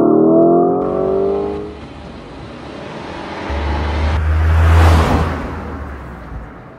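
Car engine accelerating, its pitch rising through the first second and a half. Then a rushing whoosh with a deep rumble swells to a peak about five seconds in and fades, like a car speeding past.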